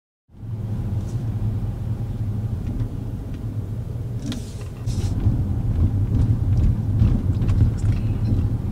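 Steady low rumble of a car heard from inside its cabin, with a few faint clicks and two short hisses a little before halfway.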